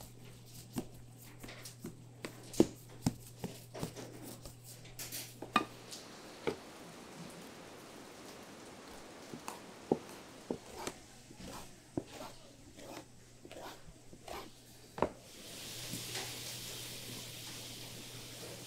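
Metal bench scraper chopping through soft dough and knocking on a floured work table, in a run of separate sharp taps, the loudest about two and a half, ten and fifteen seconds in. A steady low hum runs underneath, and a hiss comes in about fifteen seconds in.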